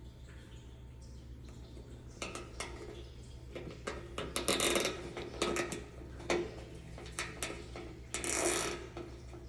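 Small plastic zip tie being pulled tight, its ratcheting head making a zipping rasp, with scattered clicks of plastic being handled. Two longer zips come, one midway and one near the end.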